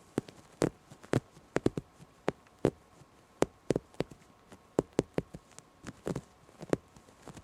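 Fingernails tapping on a fabric or canvas surface: about twenty sharp, separate taps at an uneven pace, some in quick pairs.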